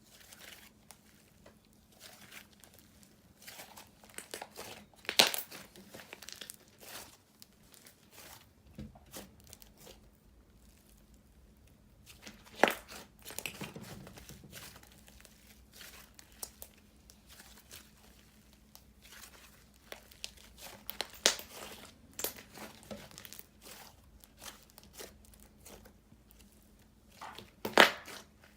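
Clay-and-clear snow fizz slime being stretched and squished by hand: irregular soft crinkling and crackling with sharp pops, a few louder pops scattered through.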